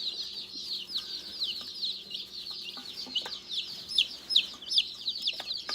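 A brooder full of newly arrived baby meat chicks peeping nonstop: many high, downward-falling cheeps overlapping, several a second.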